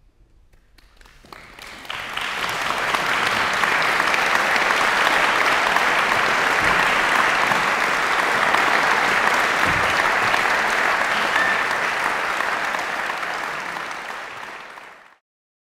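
Concert hall audience applauding. It swells up over the first couple of seconds, holds steady, then cuts off suddenly near the end.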